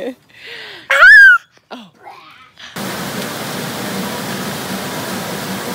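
A toddler's short, loud, high-pitched squeal about a second in, among a few softer baby sounds. About three seconds in it gives way to the steady rush of river water pouring over rocky rapids.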